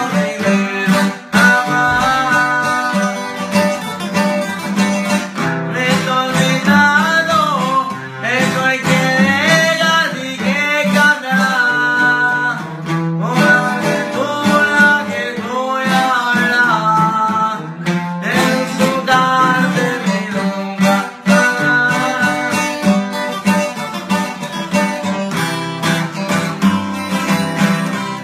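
Two acoustic guitars being strummed and picked together in a slow regional Mexican ballad, with a man singing over them for much of it.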